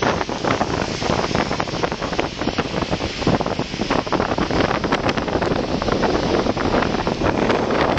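Wind buffeting the phone's microphone on a moving open vehicle, with rumbling road and traffic noise underneath and frequent crackles.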